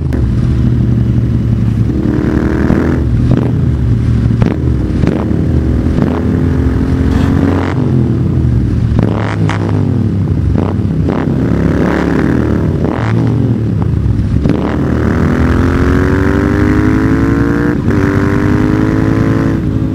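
Motorcycle engine revving again and again, its pitch climbing and falling with each blip of the throttle, with irregular sharp cracks among the revs and one long climb in pitch near the end.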